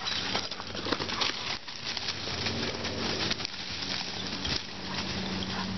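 Several dogs running and chasing through dry leaf litter: a fast, dense crunching and rustling of paws in dead leaves, with sharp crackles.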